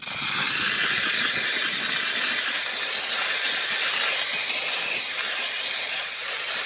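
Detailing steam cleaner jetting steam against a leather seat to loosen oily grime: a loud, steady hiss that switches on abruptly.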